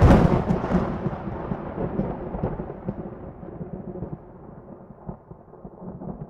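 Thunder rumbling after a clap, loudest at the start with a few sharp cracks, then rolling on and slowly dying away.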